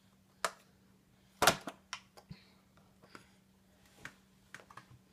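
Empty clear plastic tomato clamshell container being handled by a toddler: a few sharp plastic clicks and taps, the loudest about a second and a half in, with smaller clicks after it.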